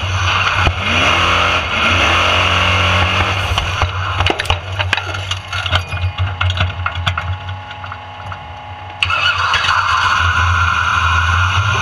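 Formula Offroad buggy's engine revving up and down, heard from inside the cockpit. About four seconds in it drops to quieter running with a scatter of sharp clicks and rattles, then comes back loud all at once about nine seconds in.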